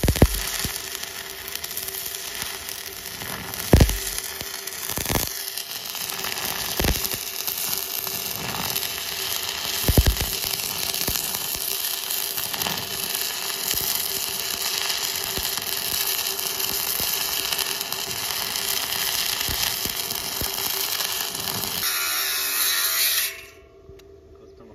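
Stick welding arc crackling and buzzing steadily as a rod electrode lays a bead on steel, fed by a Bestarc MIG145 inverter welder in stick mode on a 50 m extension cable. There are a couple of sharper pops along the way, and the arc cuts off near the end.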